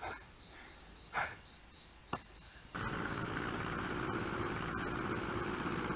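Faint crickets chirping with a few brief small sounds, then about three seconds in a helicopter's steady engine and rotor noise cuts in suddenly and carries on.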